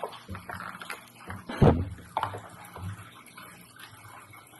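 Foam 3D puzzle pieces being handled, pressed out and fitted together: small clicks and rustling, with one sharper knock about 1.7 s in.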